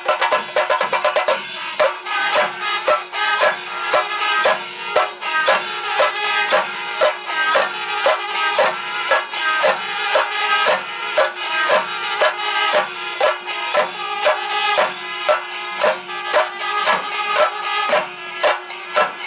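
Kerala temple percussion ensemble: a long line of chenda drums beaten with sticks, with cymbals ringing on the beats and a steady held tone underneath. Fast strokes at first, settling into a slower, even beat after about two seconds.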